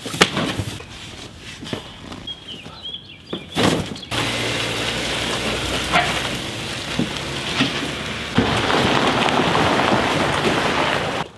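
A few thuds of cardboard boxes being tossed onto a pontoon boat. About four seconds in, this gives way to steady road noise with a low hum from a vehicle towing the boat on its trailer. Near the end comes a louder, even rush of water as the boat is backed into a lake.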